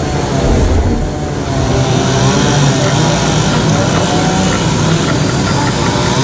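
Gasoline chainsaws running steadily as they cut into logs during quick carving.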